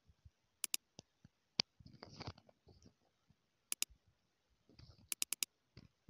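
Computer mouse clicking: a quick pair of clicks, another pair about three seconds later, then four clicks in quick succession near the end, with faint low rustling in between.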